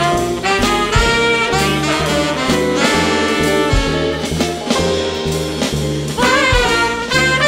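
Live jazz band playing an instrumental passage between sung lines: alto saxophone and trumpet carry the melody over upright bass and drums.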